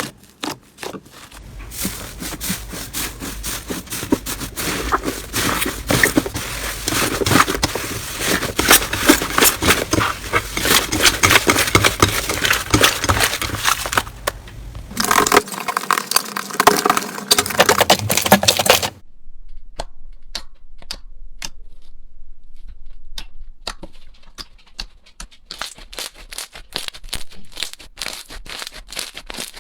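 Slime being squeezed and pressed by hand, making dense crackling and popping through the first half. The sound changes about halfway, then again about two-thirds in, to sparser separate clicks and pops.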